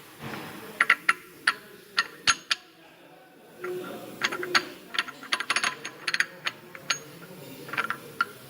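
Metal parts of a manual gearbox clinking and knocking against each other as they are moved by hand: irregular sharp, ringing clicks, some in quick clusters, with a short pause about three seconds in.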